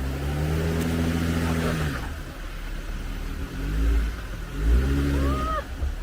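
Jeep Wrangler JLU engine revving in repeated bursts as it crawls through a rough, steep section of trail, the pitch rising and falling several times. Heavy low rumbles come about four and five seconds in.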